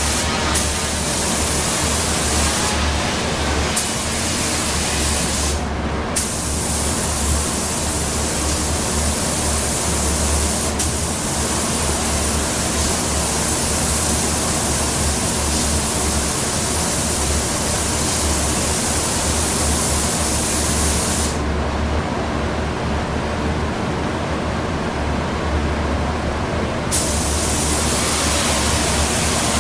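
Gravity-feed automotive spray gun hissing as it sprays clear coat onto a car fender, its trigger let off briefly a couple of times and for several seconds in the second half, which cuts the high part of the hiss. A steady low hum runs underneath.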